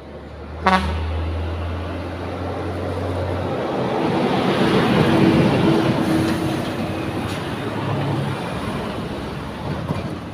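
Road traffic passing close by. A short sharp horn toot comes about a second in, then a truck's engine and tyres swell to their loudest around five to six seconds in and fade. Another vehicle passes near the end.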